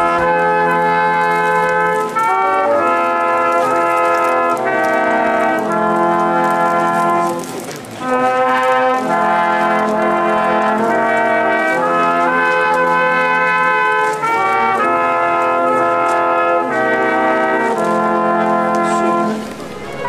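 Brass quartet of trumpets and trombone playing a slow piece in sustained, held chords. There is a short break between phrases about eight seconds in and another near the end.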